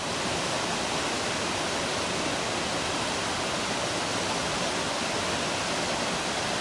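Waterfall pouring into a rocky creek: a steady, even rush of falling water that cuts in suddenly and does not change.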